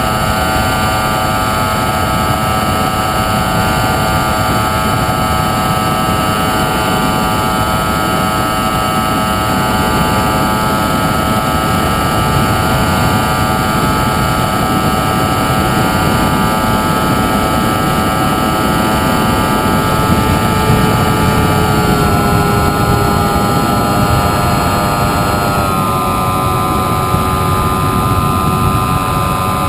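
Model airplane's motor and propeller whining steadily, heard from on board over a rush of wind. The whine drops in pitch twice near the end.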